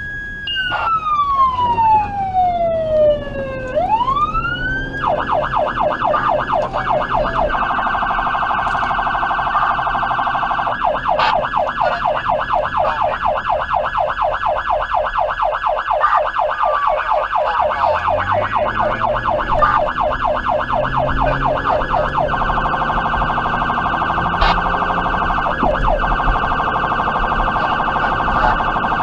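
Federal Signal Touchmaster Delta electronic siren through 100-watt speakers, sounding a slow wail that falls and rises once, then switching about five seconds in to a fast, continuous yelp. The vehicle's engine is heard underneath, rising in pitch about two-thirds of the way through as the car accelerates.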